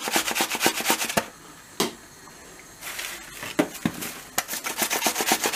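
Onion being grated on a metal box grater: quick, evenly spaced rasping strokes. They stop for about two seconds near the middle, broken by a single knock, then start again.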